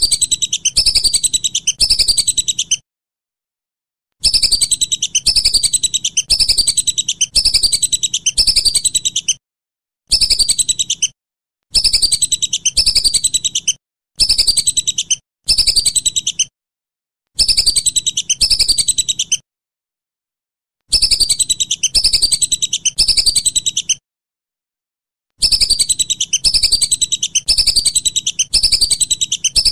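Whistling duck (belibis) calling: repeated high whistled notes, each falling in pitch, in bouts of a few seconds broken by short silent gaps.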